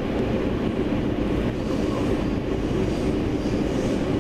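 Passenger train running at speed, heard from inside the carriage: a steady rumble with a faint low hum.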